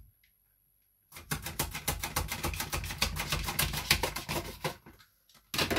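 Tupperware Mando Junior mandoline slicer worked rapidly back and forth with its food holder, slicing the last remnant of a vegetable: a quick, even run of clattering strokes, several a second, for about three and a half seconds. A single knock follows near the end.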